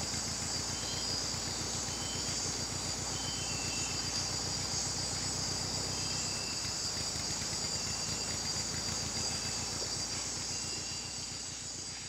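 Nighttime rainforest insect chorus: a dense, steady high-pitched buzz, with short chirps repeating about once a second. Under it runs the low, even rumble of a boat's motor.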